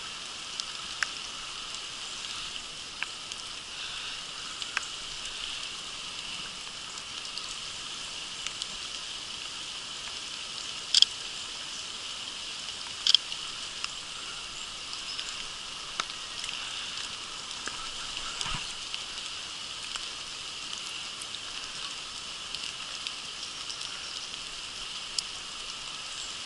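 Steady patter of rain, with scattered small drop ticks and two sharper taps a couple of seconds apart near the middle.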